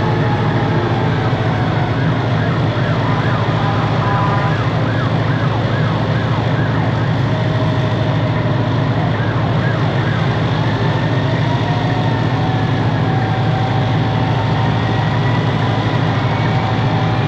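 Detroit Diesel 8V71 two-stroke V8 running steadily at idle. Behind it, sirens sound more faintly: a quick yelp early on and a slow rising-and-falling wail later.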